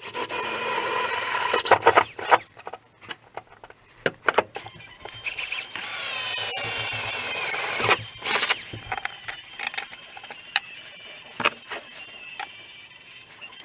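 Power drill boring out the bracket holes for a nitrous bottle mount, running in two long bursts, the second dipping in pitch before it stops. Sharp clicks and knocks from handling the drill and work come between and after the bursts.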